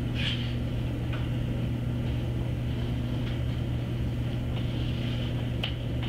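Steady low room hum with a few faint, short clicks.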